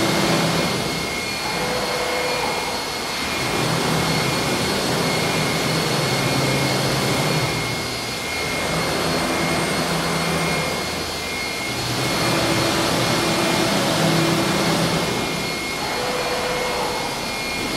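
CNC wood router running, its spindle giving a steady high whine over a loud noisy rush of the bit cutting wood. The noise eases off and swells again every three to four seconds.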